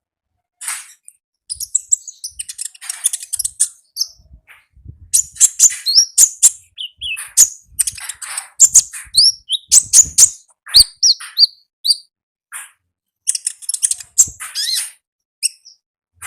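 A konin, a small songbird, singing energetically in rapid bursts of high chirps, trills and short whistled slurs, with brief pauses between phrases.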